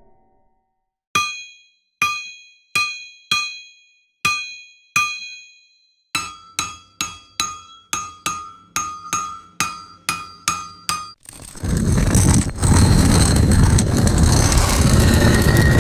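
Hammer striking metal: six separate ringing clinks about three-quarters of a second apart, then a quicker run of about a dozen ringing strikes a little under half a second apart. About eleven seconds in, a long, loud rushing noise takes over.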